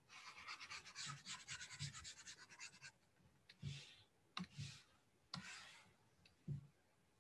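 Faint stylus scratching quickly back and forth on a tablet surface for about three seconds, as handwritten ink is erased, followed by about five separate light taps or clicks.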